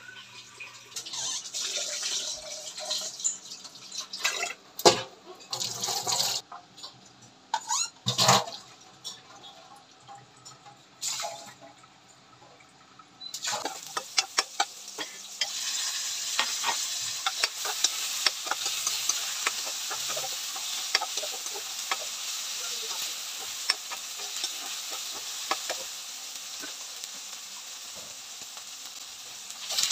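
Water splashing, with scattered knocks and clatter and two loud sharp knocks. From a little under halfway, onion, ginger and tomato sizzle in hot oil in a wok, with the steady hiss of frying and the frequent clicks and scrapes of a metal spoon stirring.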